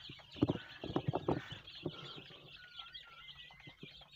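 A crowd of young chicks peeping continuously in high chirps. A few loud thumps come between about half a second and a second and a half in.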